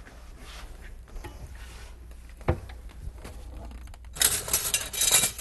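Kitchenware being rummaged below a counter: a single knock about halfway, then a burst of clinking and clattering of dishes and utensils near the end.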